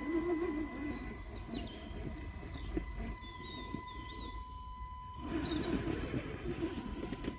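Pigeon cooing in woodland: a low cooing phrase at the start and another from about two-thirds of the way in, with small birds chirping in between. A faint steady high tone runs underneath.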